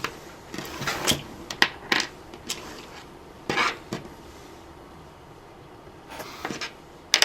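Irregular small clicks and taps of hand tools working on wires at a desk, as wire cutters trim a power jack's two leads to different lengths. A short scraping sound comes about three and a half seconds in.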